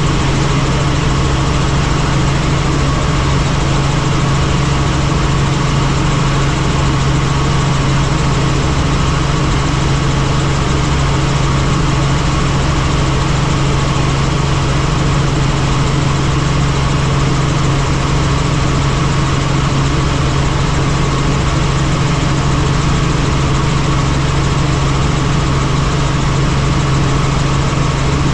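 Helicopter turbine and rotors running steadily in flight: a constant low hum over an even rushing noise, with no change in pitch or level.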